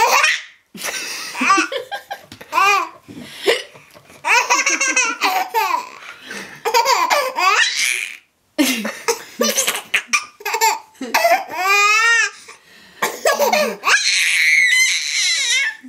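A baby laughing hard in repeated high-pitched fits of giggling, with a brief pause about eight seconds in.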